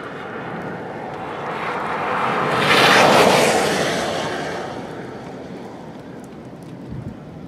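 A vehicle passing on the road, its tyre and engine noise swelling to a peak about three seconds in and then fading away.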